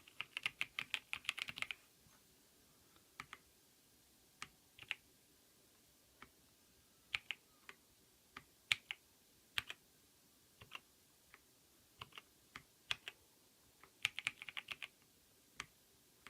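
Typing on a Keychron V6 Max mechanical keyboard with Gateron Brown tactile switches: a quick run of keystrokes at the start, then slower single and paired key presses, and another quick run near the end.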